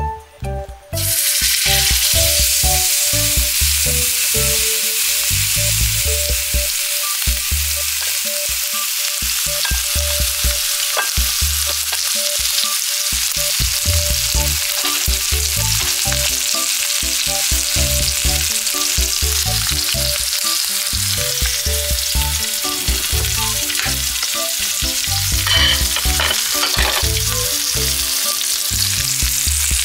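Steak searing in hot oil in a frying pan: a loud sizzle that starts suddenly about a second in as the meat hits the oil, then runs on steadily.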